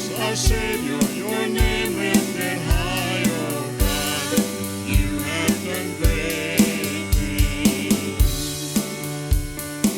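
Worship band playing a praise song, with a steady drum-kit beat of kick and snare under sustained instruments and voices singing.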